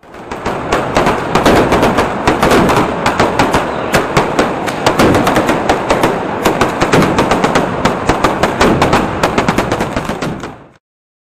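A rapid, continuous string of firecracker bangs and crackles, several a second, loud throughout. It builds up at the start and cuts off suddenly shortly before the end.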